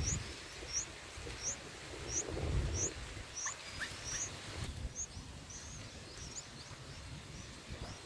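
Bird chirping: a short, high, rising chirp repeated about one and a half times a second for the first four seconds, then a few scattered high calls, over a low rumbling noise.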